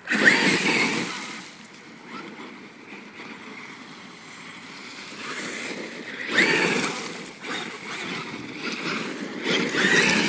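Brushless Traxxas E-Revo RC monster truck on a 4S LiPo setup accelerating in bursts: the electric motor whines up over the hiss of its tyres scrabbling through gravel and dry leaves. Three louder bursts: at the start, about six seconds in, and near the end.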